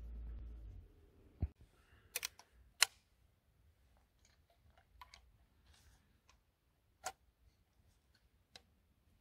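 Sharp metallic clicks from the action of a Pedersoli M1867 rolling block rifle being worked as a 45-70 cartridge is loaded into its breech: about eight separate clicks, the loudest a pair about two to three seconds in. A low rumble runs through the first second.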